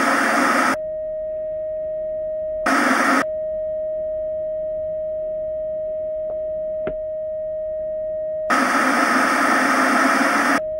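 Television static hiss alternating with a steady single-pitch test-pattern tone. Static sounds briefly at the start, again for about half a second near three seconds in, and for about two seconds near the end, with the tone filling the gaps. A faint click comes near seven seconds.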